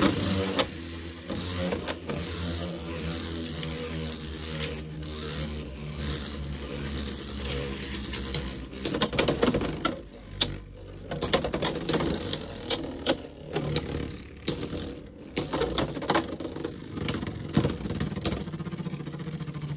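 Wyvern Gale and Sphinx Cowl Beyblade X spinning tops battling in a clear plastic stadium: a steady whirring hum as they spin on the plastic floor. Sharp clacks come as they strike each other and the stadium wall, most often about halfway through and near the end.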